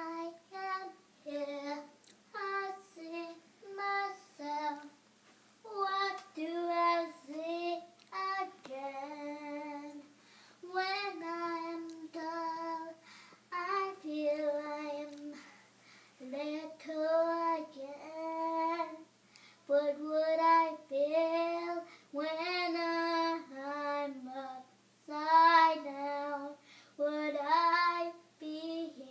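A young girl singing unaccompanied, in short phrases of held notes with brief pauses for breath.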